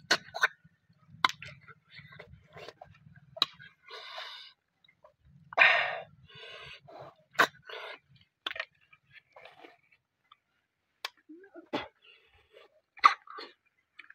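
Snails being sucked out of their shells: repeated short, loud slurps, with sharp clicks and lip-smacks between them.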